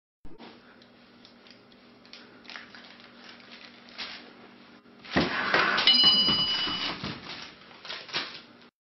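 A cat tumbling off a ledge in a home video: quiet room noise and light knocks, then a loud clatter and scuffle about five seconds in. A short bell-like ding rings over it, and a couple of knocks follow near the end.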